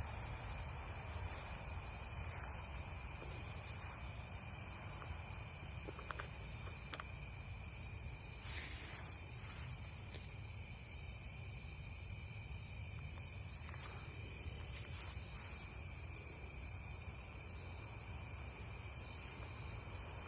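Crickets chirping in a steady, even trill at night, with a few brief rustles over it.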